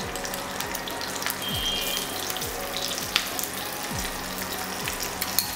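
Hot oil with mustard seeds and curry leaves sizzling steadily in a pan on low heat, with a few sharp clicks.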